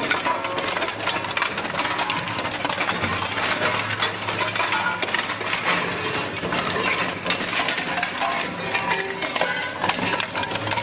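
Industrial twin-shaft shredder tearing up metal wheel rims: continuous clanking and crunching of metal over the steady hum of the machine's drive.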